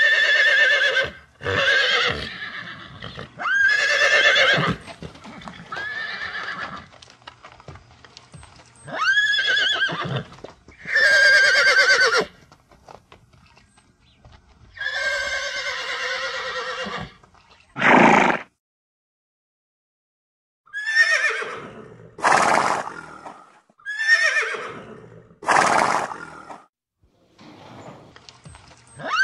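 Horses neighing and whinnying, about a dozen separate calls, some falling in pitch, with a complete break of about two seconds about two-thirds of the way through.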